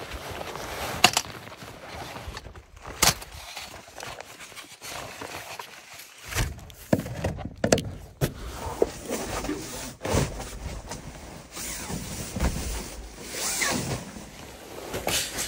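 Clicks, knocks and rustling of a folding camp cot being taken out of its nylon carry bag and its frame opened out, in a series of short separate bouts.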